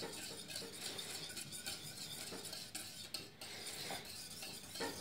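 Whisk beating batter in a stainless steel mixing bowl: continuous fast scraping and clinking of metal on metal as milk and melted butter are stirred in.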